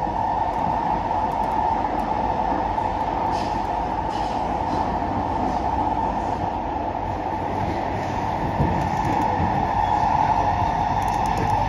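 Kawasaki–CSR Sifang C151A metro train heard from inside the carriage while running in the tunnel: a steady rumble of wheels on rail, with a steady hum.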